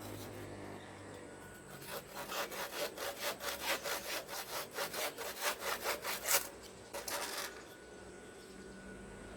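Hand saw cutting wood with quick back-and-forth strokes, about four or five a second, for about four seconds. After a brief stop there is one more short stroke.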